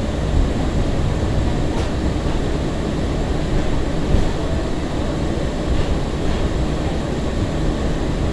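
Breda LRV3 light rail car running along the track, heard from inside the car: a steady low rumble of the wheels and running gear, with a couple of faint clicks.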